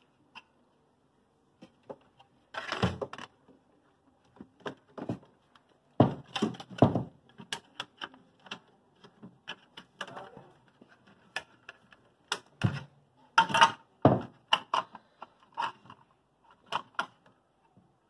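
A refrigerator thermostat and its plastic housing being handled and fitted back into place: irregular clicks, taps and plastic knocks, with louder knocks now and then.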